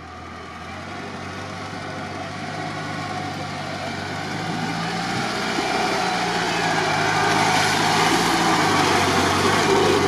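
UAZ off-roader's engine running at low, steady revs as it crawls along a muddy track, growing steadily louder as it approaches and passes close by.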